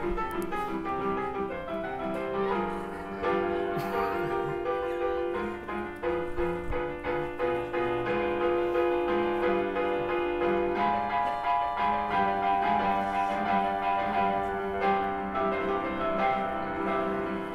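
Live piano accompaniment in silent-film style, a continuous stream of notes and chords.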